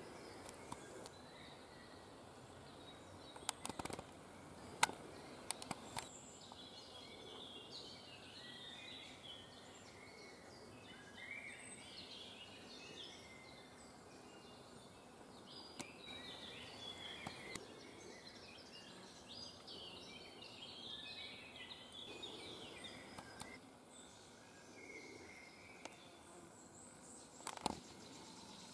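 Faint birdsong, several small birds chirping and singing in short phrases, over a low hiss. A few short sharp clicks stand out about four to six seconds in and again near the end.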